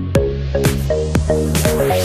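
Electronic dance music with a steady beat, about two beats a second over held bass notes, and a rising swoosh building up through it.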